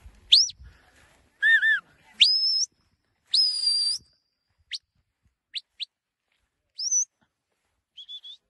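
Shepherd's whistle commands to a young sheepdog working sheep: a string of sharp whistled notes, some swooping up or down, some held, then short upward flicks, and three quick pips near the end.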